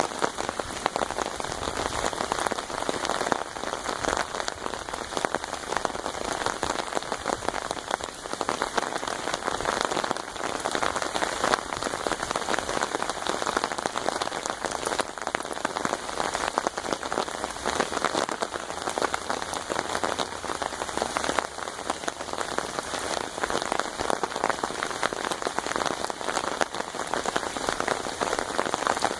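Steady rain drumming on an umbrella overhead: a dense, even patter of close drops.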